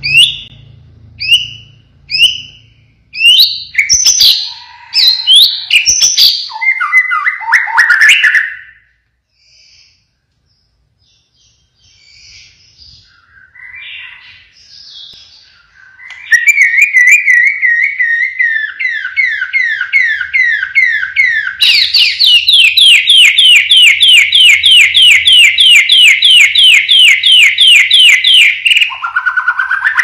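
White-rumped shama singing. First come a few short, sharp falling whistles and a burst of varied song, then a pause with a few soft notes. From just past halfway it delivers a long fast run of repeated sweeping notes, about four or five a second; the run grows louder a little past two-thirds and ends on a lower note.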